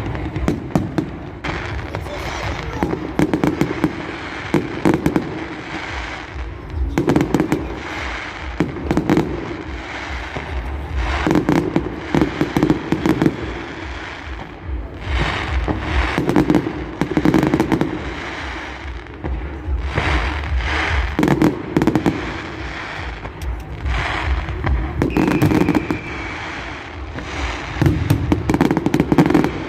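Fireworks display: a continuous barrage of aerial shells bursting with sharp bangs and booms, mixed with dense crackling, coming in waves every second or two.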